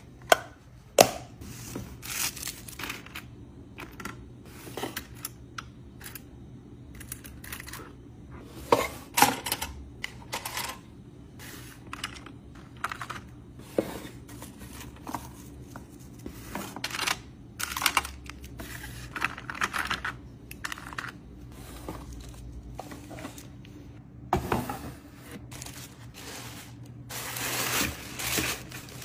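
Hands packing orders: sharp clicks as a clear plastic press-on nail case snaps shut, then a run of small plastic clicks and taps from a plastic drawer organizer being handled, and tissue paper crinkling near the end.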